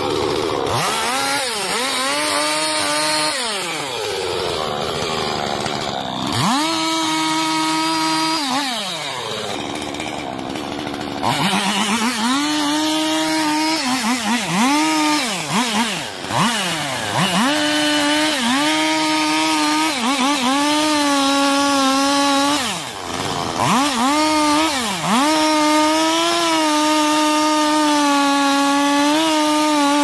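Large chainsaw cutting into the base of a big tree trunk during felling. The engine revs up and falls back again and again in the first half, then holds a steady high pitch with a few short drops as it works through the cut.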